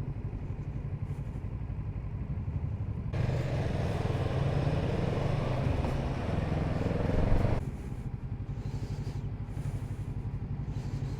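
Kawasaki Z650RS parallel-twin engine running at low speed with a steady low pulse. A rush of wind and road noise swells about three seconds in, gets louder, and drops away suddenly a little past halfway, leaving the engine on its own.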